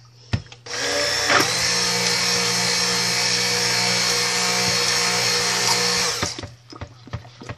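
Handheld immersion (stick) blender running in a bowl of cold-process soap batter, starting just under a second in and stopping near the end, after about five and a half seconds of steady running.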